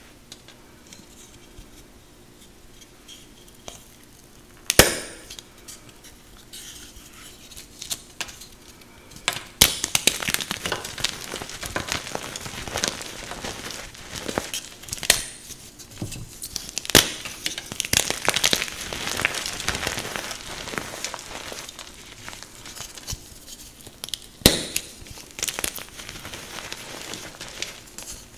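Brittle pink-dyed chalk blocks snapped and crushed by hand. A single sharp snap about five seconds in, then a long run of dense crunching and crumbling as the blocks break into powder and chunks. Another sharp snap comes near the end.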